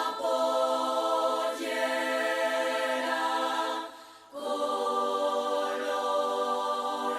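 Recorded music of long, held chords, breaking off briefly about four seconds in before the chords resume.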